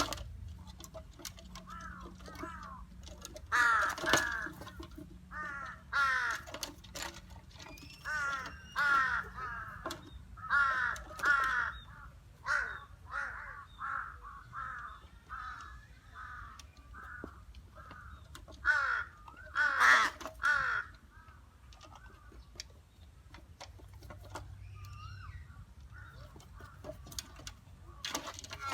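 Crows cawing in a long run of short, harsh calls, with the loudest caws about four seconds in and again around two-thirds of the way through.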